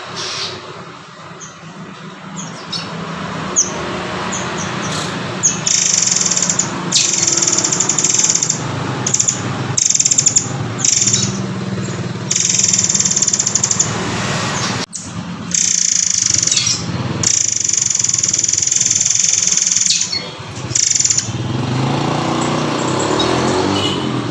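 Murai air (murai kopi) songbird calling: a series of shrill, high-pitched trilled notes, some held for a second or more, separated by short pauses, over a low steady background hum.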